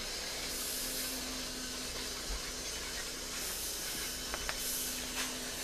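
Battery-powered toy train running around its plastic track: a steady hiss with a faint, constant hum from its motor.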